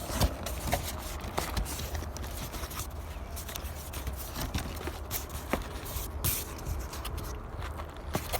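Cardboard box being worked open and handled: scraping and scattered light clicks and taps over a low steady rumble.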